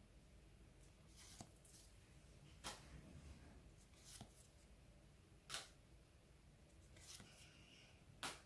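Pokémon trading cards being slid one at a time from the front of a hand-held stack to the back: a soft card swish about every second and a half, six in all, the last two the loudest.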